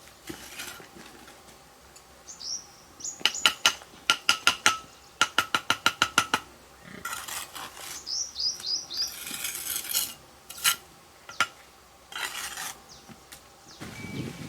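Quick series of sharp, ringing knocks, about three a second, clustered in the middle, with a few scattered knocks and scraping sounds around them.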